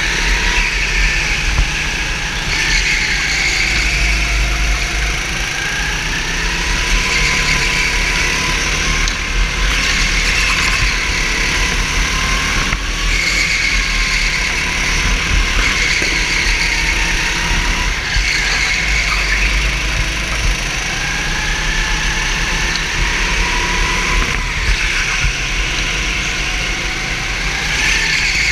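Go-kart engine heard from on board during racing, its pitch rising and falling every few seconds as it accelerates down each straight and drops back for the next corner.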